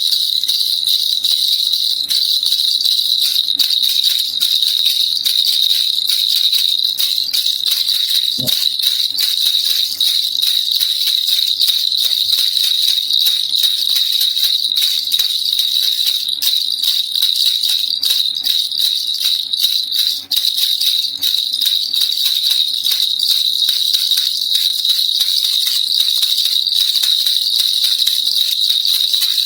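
Baby rattle (kilukiluppai) shaken continuously: a dense, fast, unbroken rattling and jingling, bright and hissy. There is one soft thump about eight seconds in, and a brief dip about two-thirds of the way through.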